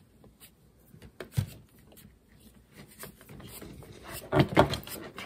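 A rubber sheath being worked by hand onto an ignition coil's spark plug lead wire: soft rubbing and small clicks, one sharper knock a little over a second in, and a louder spell of rubbing near the end.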